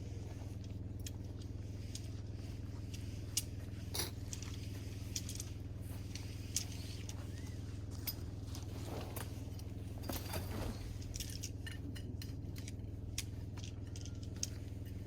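A steady low hum with scattered short clicks and light clinks, as of small objects being handled, and a brief rustle about ten seconds in.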